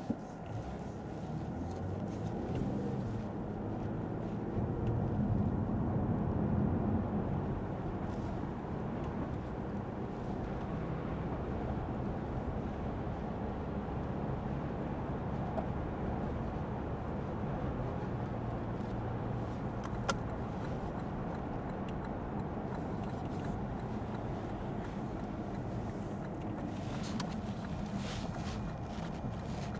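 2022 Lexus ES 350 F Sport's 3.5-litre V6 and road noise heard while driving: a steady low rumble that swells for a few seconds about four seconds in, with a sharp click at the very start.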